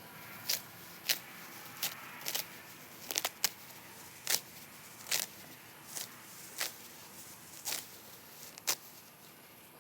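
Grass and weeds being pulled up by hand: a short rustling rip every half second to a second, irregular, over a steady faint background.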